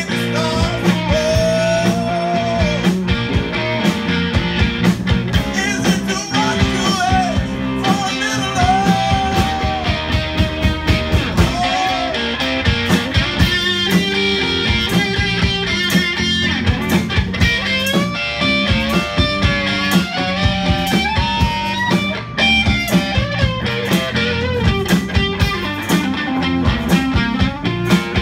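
Live band playing a song on electric guitars, bass guitar and drum kit, with regular drum beats under a melody line.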